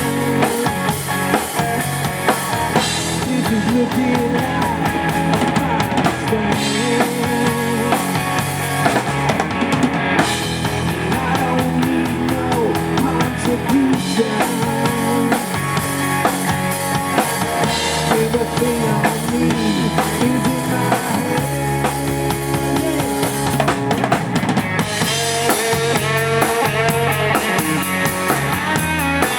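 Live rock band playing an instrumental passage, with a full drum kit (bass drum, snare and rimshots) driving a steady beat under electric guitar and bass.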